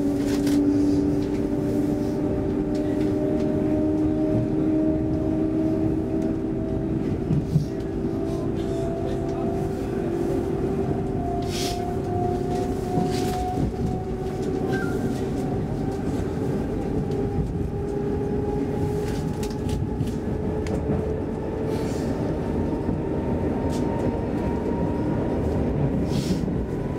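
Inside an X10 commuter train pulling away from a station: the electric motors' whine rises steadily in pitch over the first fifteen seconds or so and then levels off, over a constant rumble of wheels on rail, with a few short knocks.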